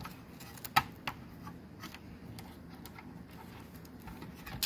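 A few sharp clicks and light taps from a DVR's parts being handled, over faint steady background noise: two clicks about a second in, and a louder one at the end.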